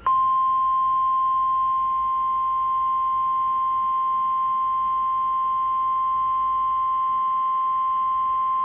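NOAA Weather Radio warning alarm tone: a single steady 1050 Hz tone that starts abruptly and holds about nine seconds. It signals that a warning message follows, here a severe thunderstorm warning.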